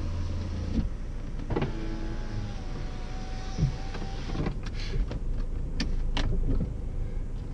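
Clicks and knocks from a code scanner being plugged into the car's diagnostic port under the dashboard. A steady whine runs for about two and a half seconds in the middle.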